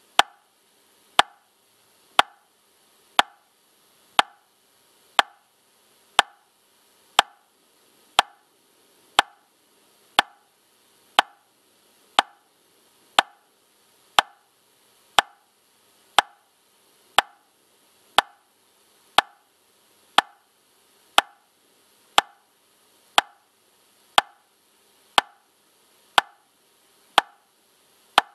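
Metronome clicking steadily at 60 beats per minute: one short, sharp tick every second with a brief ring after each.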